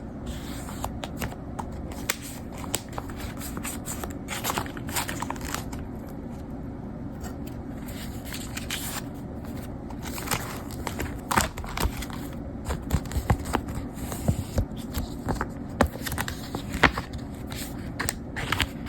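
Small objects being handled: continuous scraping and rustling with many scattered light clicks and taps, more frequent in the second half.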